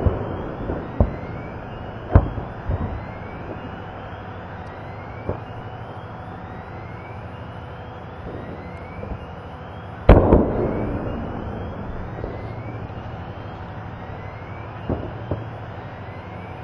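Munitions in a burning ammunition dump cooking off: a string of separate explosions. There are sharp bangs about one and two seconds in, a few smaller ones, then the loudest blast about ten seconds in with a long rumbling echo that dies away, and two smaller bangs near the end.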